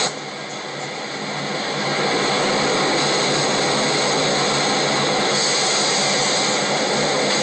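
Steady, loud rushing noise of a giant tsunami wave and flood water from a disaster-film sound track. It dips at the start and builds back up over about two seconds.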